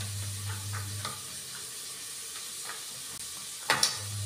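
Onions frying in mustard oil, sizzling steadily in a pot on a gas burner, with light clinks of a spoon in a steel bowl and a sharper clink near the end. A low hum sounds during the first second.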